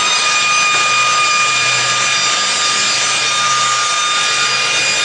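Slab-and-edging circular saw machine running steadily, a loud even noise with a high-pitched whine from the spinning saw blades.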